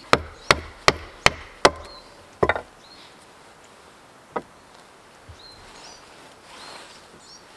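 Wood being struck with a tool in quick, sharp knocks: five strikes about 0.4 s apart, then a quick double strike, and one more a couple of seconds later.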